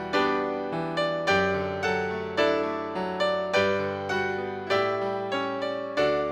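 Solo piano music: notes and chords struck at an even, unhurried pace, each one ringing and fading before the next.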